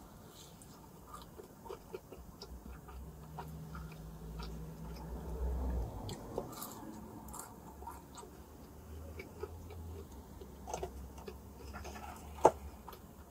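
Close-up chewing and biting of a flaky-pastry beef picadillo empanada: soft crunches and small wet mouth clicks, with one sharp click near the end.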